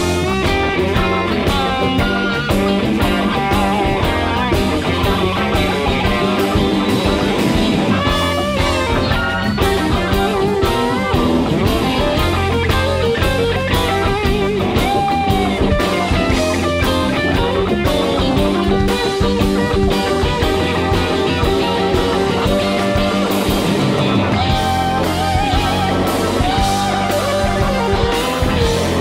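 Live rock band playing an instrumental section: an electric guitar solo with bent, sliding notes over bass and a drum kit.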